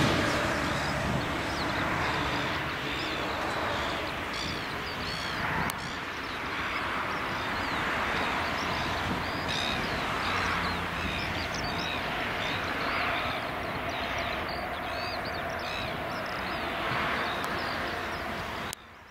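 Boeing 787-9 jet engines running at low taxi power: a steady rushing hum with a faint whine. Birds chirp repeatedly over it. The sound cuts off abruptly near the end.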